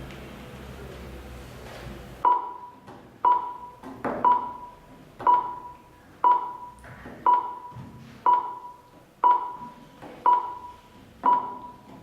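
Ten identical short electronic pings, evenly spaced about one a second, each with a brief ringing tail. This is the kind of cue a flash-number mental-arithmetic drill sounds as each number appears. A steady low hum stops just before the pings begin, about two seconds in.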